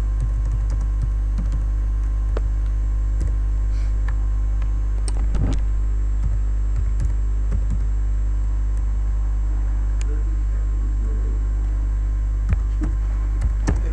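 Computer keyboard typing, irregular key clicks, over a loud steady low electrical mains hum.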